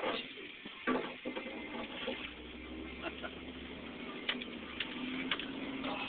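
Ford F-150 pickup driving slowly over a rough dirt track, heard from inside the cab: a steady engine hum comes in from about two seconds in, under scattered knocks and rattles of the truck's body and interior. There are a few sharp clicks near the start and several more near the end.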